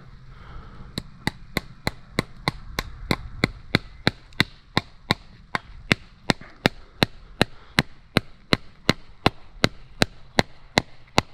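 Hammer driving fence staples into a wooden fence post to hold barbed wire: a steady run of sharp, ringing blows, about three a second, starting about a second in.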